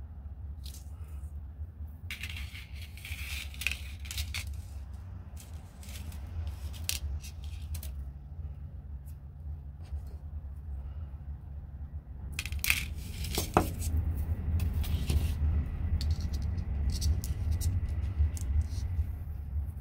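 Thin silver craft wire being folded and pulled straight through the fingers on a cutting mat: scattered light clicks, scrapes and metallic clinks, with a cluster of louder clinks and one short ringing clink about thirteen seconds in, over a low steady hum.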